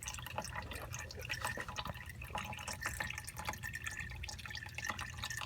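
Condensate water dripping and splattering out of an air-conditioning air handler in quick, irregular drops over a steady low hum. The water is backing out because the condensate drain has no trap, so the unit draws air in through the drain line.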